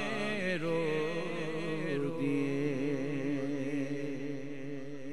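Unaccompanied male voice singing a naat, drawing out a long wavering note at the end of a line, over steady held tones from other voices. It eases slightly toward the end.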